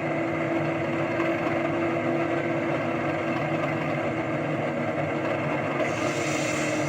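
Model Class 37 diesel locomotive's sound decoder playing a steady English Electric engine idle through its speakers, with a short hiss about six seconds in.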